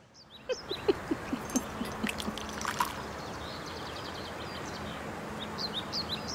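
Small birds chirping, many short high calls over a steady background hiss.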